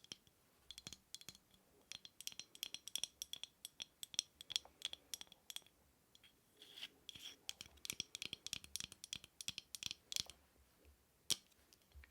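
Rapid tapping and scratching on a small hard object: quick clicks in two runs of several seconds each, then a single click near the end.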